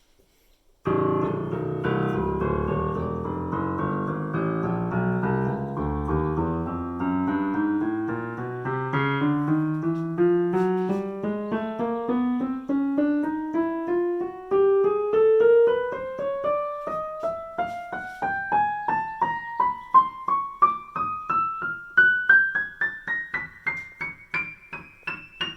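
Korg SP-250 digital piano playing notes one after another that climb steadily from the low bass up into the high treble, starting about a second in; the low notes ring into one another, the high ones sound as short separate strikes.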